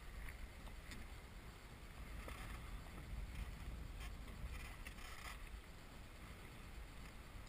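Wind rumbling on the microphone over water lapping against an inflatable boat, with a few faint knocks.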